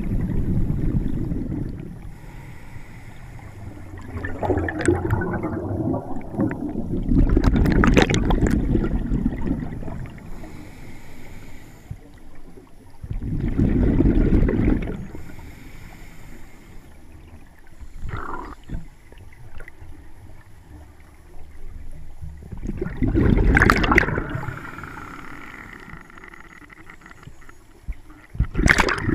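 Scuba regulator breathing heard underwater: a faint hiss on each inhalation, then a loud bubbling gush as the exhaled air vents out of the regulator. About five breaths come several seconds apart.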